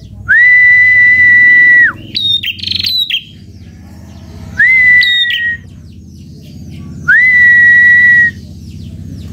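Three long, steady whistled notes, each one to one and a half seconds, with quick bird chirps between the first two and over the second.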